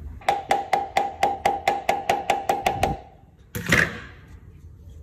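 About a dozen quick, evenly spaced hollow knocks, about five a second, on a 3D-printed plastic mold holding a cast cement pot, then a single louder crack about three and a half seconds in as the mold is flexed.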